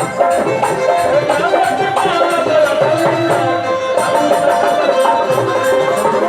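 Instrumental folk music: a held melody line over a steady percussion beat with a shaker-like rhythm, about four strokes a second.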